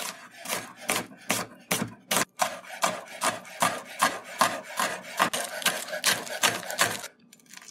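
Chef's knife chopping onion and then scallion, the blade knocking on a wooden cutting board about three times a second; the chopping stops shortly before the end.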